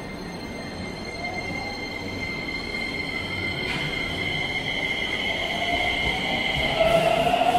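Keisei 3100 series electric train pulling out of an underground station, its traction motors whining and rising in pitch as it accelerates over a steady high tone, the sound growing louder toward the end.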